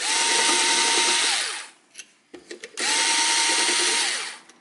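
Hitachi power driver spinning out the water pump bolts in two runs of about a second and a half each, a steady whine that drops in pitch as the motor winds down at the end of each run.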